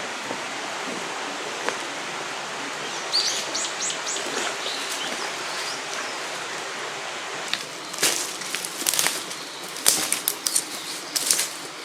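Steady rush of a river running over rocks, with a bird giving a quick run of about six high chirps about three seconds in. From about eight seconds to near the end comes a flurry of sharp clicks and rustles.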